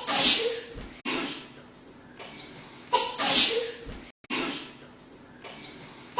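A woman's wet double sneeze, heard twice. Each time, a short 'ah' is followed by two sneezes about a second apart, and the second double sneeze begins about three seconds in.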